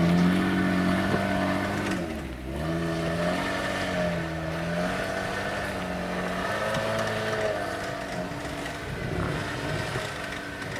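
Jeep engine revving up and down repeatedly, its pitch rising and falling every second or two, with a brief drop in revs about two seconds in.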